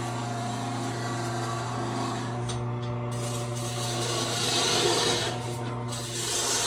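Wood lathe running with a steady motor hum, and a rough rasping scrape over it that thins out briefly twice.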